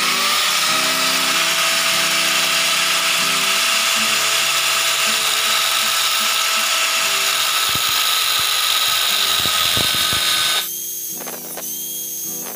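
Angle grinder with a cut-off disc spinning up and cutting into a steel motorcycle steering-bearing sleeve, a loud steady grinding for about ten seconds. Near the end the disc comes off the metal and the grinder runs on more quietly with a thin high whine.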